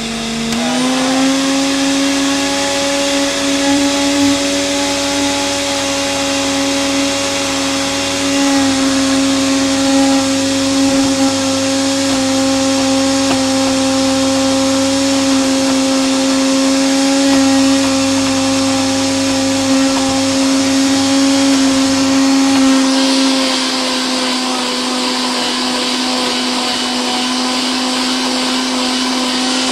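Electric countertop blender running, blending a thick green hair-treatment mixture. Its steady motor hum rises in pitch as the motor spins up just after the start. Near the end the pitch drops a little and the sound grows rougher.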